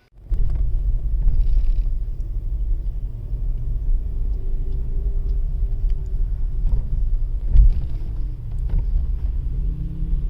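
Inside the cabin of a 2021 Skoda Kushaq driven slowly over an uneven road: steady low road rumble with faint squeaks and small creaks from the door seals, with one louder thump about two-thirds of the way through. The squeak comes from dry rubber door beadings, as Skoda itself says.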